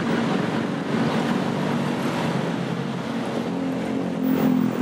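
Road traffic: a steady din of passing cars and engines, with one vehicle's engine hum growing louder about four seconds in.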